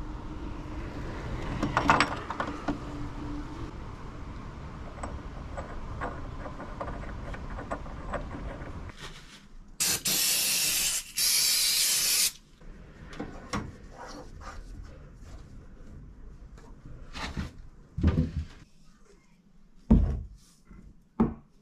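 Two bursts of hissing spray in the middle, each a second or so long with a short break between them, with scattered knocks and a few low thumps of fittings being handled around them.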